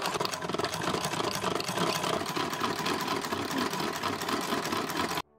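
Hand-cranked Singer 28K vibrating-shuttle sewing machine running fast, its needle bar and shuttle mechanism clattering in a rapid, even stream of clicks that cuts off suddenly near the end.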